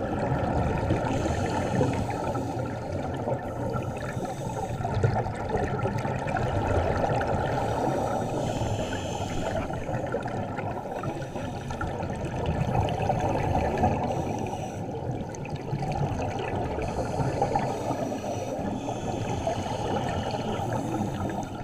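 Steady, muffled rushing of water heard underwater during a scuba dive, swelling and fading a little without a clear rhythm.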